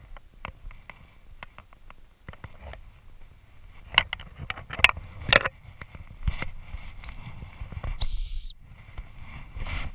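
A gundog training whistle blown once: a single high, clean blast of about half a second, about eight seconds in, that rises slightly and then drops off. Before it come a few sharp clicks and knocks.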